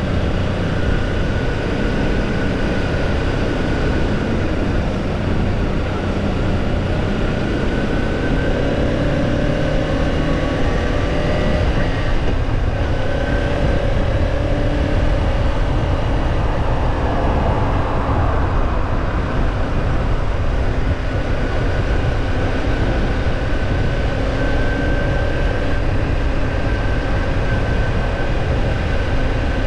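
Kawasaki Ninja 250 parallel-twin engine running while riding, heard under a heavy rush of wind noise on the camera microphone. The engine's pitch drifts gently up and down with no sharp revving.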